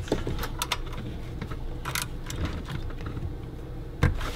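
Hand wrench clicking and scraping on the ignition coil's mounting bolts as they are snugged down: scattered, irregular metallic ticks, with a duller knock about four seconds in.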